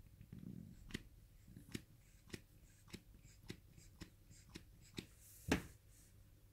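A row of light taps and clicks, about two a second, from hands working a green bath bomb in a stainless-steel half-sphere mould, with a soft rustle of handling at the start. The loudest tap comes about five and a half seconds in.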